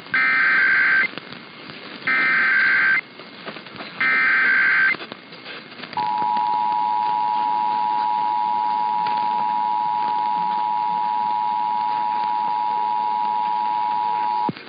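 Emergency Alert System test tones broadcast over AM radio: three one-second bursts of SAME header data, a warbling digital squawk each a second apart, then the steady two-tone EAS attention signal for about eight and a half seconds, cutting off just before the announcement.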